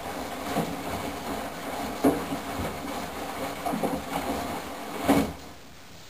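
Candy GO4 1274 LH GrandO Plus front-loading washing machine turning its drum during a wash, the wet red laundry sloshing and thudding over and over over the motor's hum. The drum stops about five seconds in, leaving only a quiet hum.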